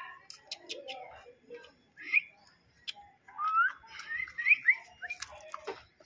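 Newborn puppies whining: a run of short, high, rising squeaks from about two seconds in, with a few soft clicks in the first second.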